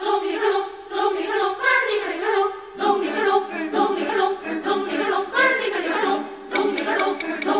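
A choir singing, with abrupt changes in the music about three and six and a half seconds in.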